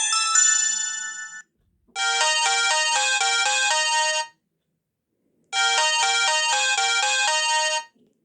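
Samsung SGH-J600 mobile phone playing a polyphonic ringtone through its speaker. A chiming tune fades out in the first second and a half, then a short melody of quick chiming notes plays twice, each time for about two seconds, with a gap of about a second between.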